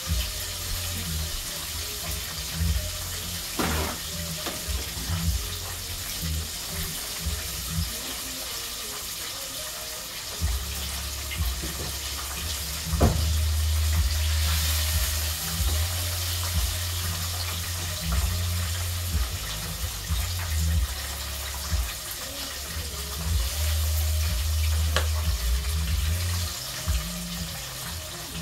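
Chicken wings deep-frying in hot grease in a cast-iron pot, a steady sizzle throughout. Metal tongs click a few times as the wings are lifted out.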